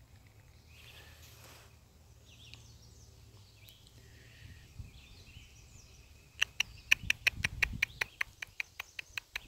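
A rapid run of sharp, high chirps, about four or five a second, starting past the middle and going on to the end, with faint scattered chirps before it.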